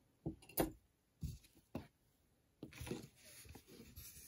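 Jewelry being handled on a tabletop: a few soft knocks and clicks in the first two seconds, then a low rustling scrape as a shell heishi bead necklace is pulled out and spread flat.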